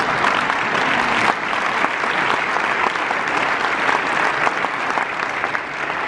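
Large audience applauding: a dense, steady clatter of many hands clapping.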